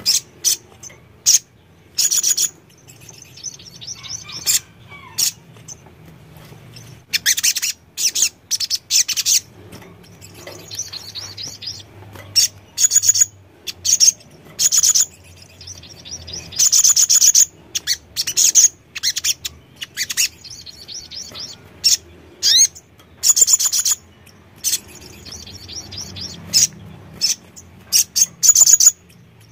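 Male sunbird (sogon) singing: bursts of fast, high-pitched chirping trills, repeated every second or so with short gaps between them.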